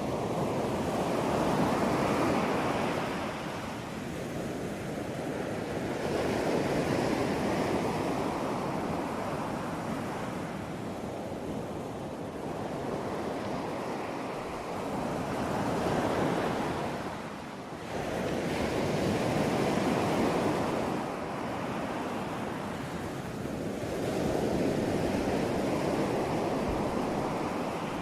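Ocean waves breaking and washing in, surging and fading about every four to six seconds. A brief lull comes near the middle, just before the next wave crashes.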